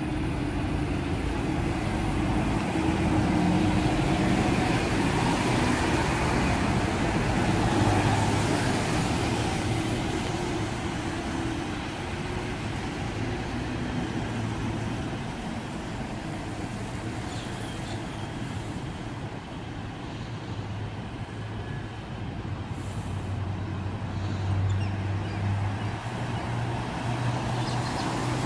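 A bus running on the road, engine and road noise together. It grows louder over the first several seconds, eases off through the middle and picks up again near the end.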